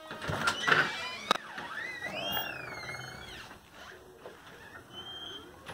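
A door being opened by its knob: the latch and knob click and knock, then the door gives a rising-and-falling creak for about a second and a half as it swings open.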